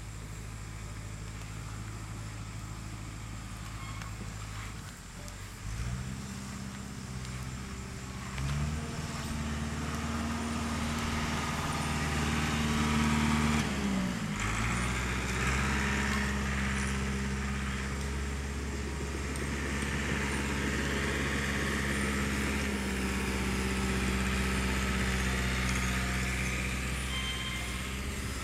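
An engine running, its pitch dropping about five seconds in, then rising in two steps and holding. It dips briefly around fourteen seconds in and picks up again, running steadily to the end.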